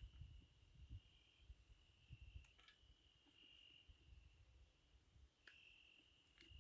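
Near silence with a faint cricket trill: a steady high-pitched chirring that runs in long stretches with short breaks. A few soft clicks sound around the middle and near the end.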